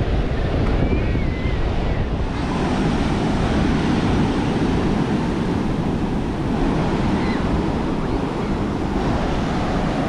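Ocean surf breaking and washing onto the beach in a steady rush, with wind buffeting the microphone.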